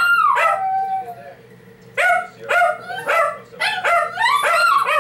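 Shih Tzu howling loudly: one long howl that slides down in pitch, then after a short pause a run of quick yips that climb back up into another howl near the end.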